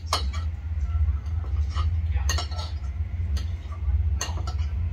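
Forks and spoons clinking and scraping against plates, several separate clinks scattered through the stretch, over a steady low hum.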